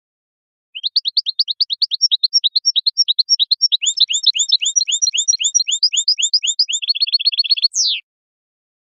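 European goldfinch (jilguero) song from a goldfinch song-training CD: one unbroken phrase of about seven seconds made of rapid, evenly repeated upward-sweeping notes, about seven a second, with a higher note joined in through the middle. It speeds into a fast trill near the end and closes with a single downward sweep, on a clean recording with no background sound.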